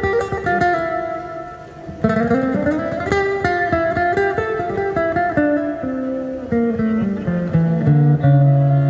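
Acoustic guitar music, plucked and strummed, with a run of low notes stepping downward through the middle and notes held near the end.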